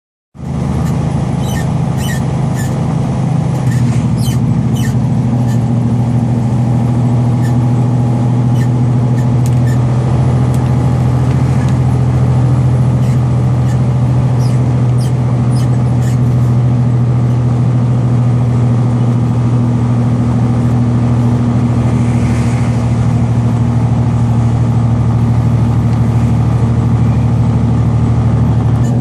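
Semi truck's diesel engine droning steadily while driving at speed, stepping up slightly about four seconds in. Sharp clicks and squeaks sound now and then through the first half.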